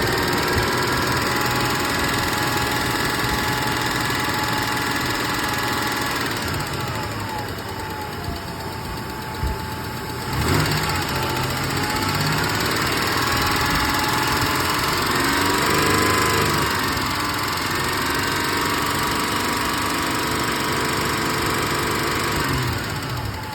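1996 Toyota Tacoma engine running with a ticking noise. The engine speed settles down after about six seconds, rises and falls again in the middle, and drops near the end. There is one short knock roughly ten seconds in.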